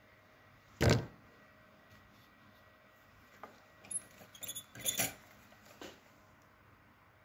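One sharp knock about a second in, then a cluster of small clicks and rustles: a hand handling a small wired circuit board and its loose hookup wires.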